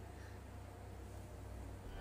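Quiet room tone with a faint steady low hum.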